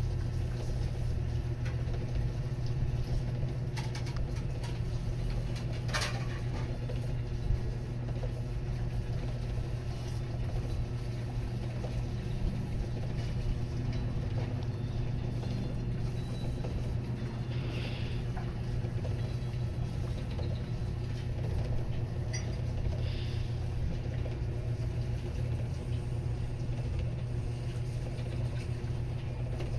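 Steady low hum over faint background noise, with a few soft clicks.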